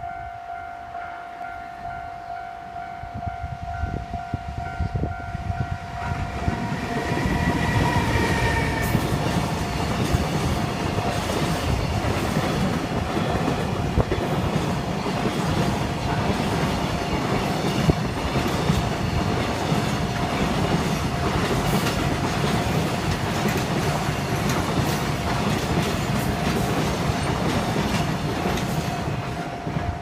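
Japanese level-crossing alarm ringing steadily while a long container freight train approaches and passes, its wagons clattering over the rails from about six seconds in until just before the end. A train horn sounds briefly about seven seconds in.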